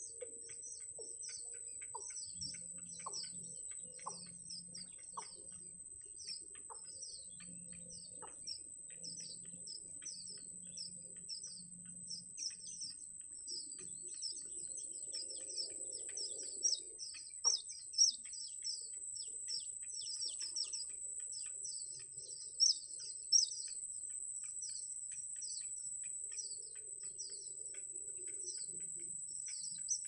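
Nestling birds peeping in rapid, high-pitched begging chirps, several a second, growing busier in the middle. A steady high-pitched whine runs underneath, and a few sharp clicks sound past the halfway point.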